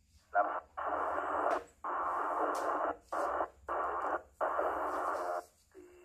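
VHF two-way radio receiver putting out six short bursts of hissy static through its speaker, each starting and stopping abruptly, as the squelch opens and closes on an incoming signal.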